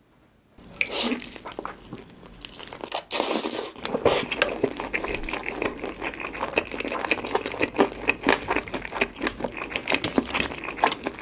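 Close-miked biting and chewing of a crispy glazed fried chicken drumstick, its crust crackling in many small crunches.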